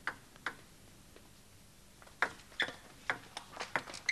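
Table tennis ball clicking: two sharp bounces near the start as the server readies, then from about two seconds in a fast rally of crisp clicks off bats and table, several a second.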